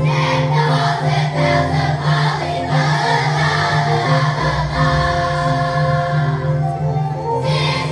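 Elementary school children's choir singing with instrumental accompaniment, steady low bass notes underneath the voices.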